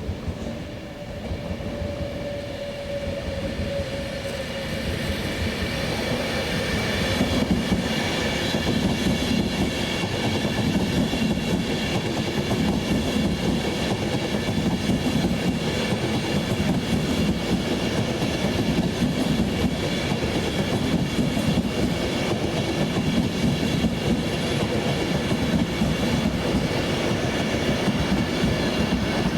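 A train running past at close range. It grows louder over the first several seconds, then holds a steady loud rumble with the wheels clattering over the rail joints and a high whine on top.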